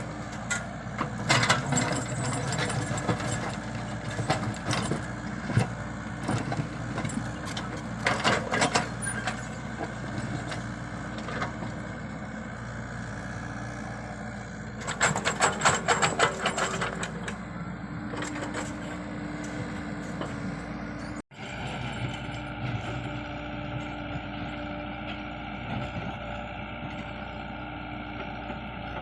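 Komatsu PC75UU compact excavator's diesel engine running steadily, with several bursts of metallic rattling and clanking from the machine at work. About two-thirds of the way through the sound cuts briefly, then the engine carries on more evenly.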